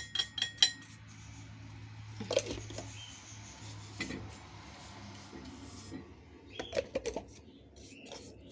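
A quick run of light metallic clinks from gas-stove burner parts, then a steady rubbing hiss as a cloth wipes cleaning product over a burner cap. A few knocks and clinks come back near the end.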